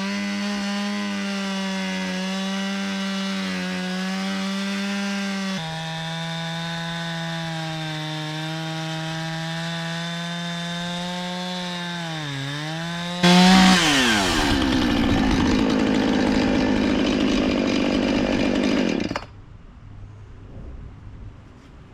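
Gas chainsaw on a portable chainsaw mill running at high revs while ripping along a log, its engine pitch sagging briefly about twelve seconds in. It then turns louder and rougher for about six seconds before cutting off suddenly, leaving faint low noise.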